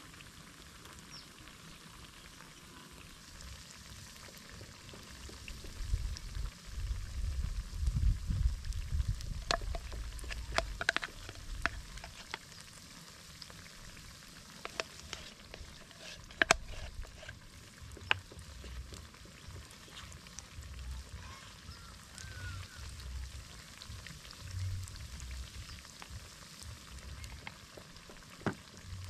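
Flour-battered potatoes (viazi karai) frying in hot vegetable oil, a steady sizzle. Several sharp clicks and a low rumble come and go over it.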